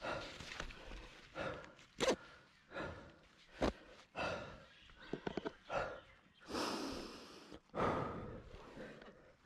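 A person breathing hard and out of breath, heavy panting in and out about once every three-quarters of a second, with one longer, louder exhale about two-thirds of the way through. A couple of sharp knocks are mixed in, and no engine is running.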